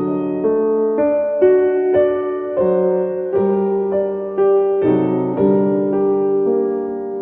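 Slow, gentle piano music: single notes and chords struck every half second or so, each ringing and fading.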